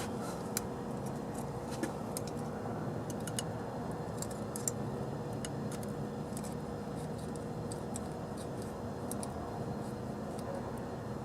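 Scattered light metallic clicks and taps of hand tools working on an open valve train, over a steady background hum.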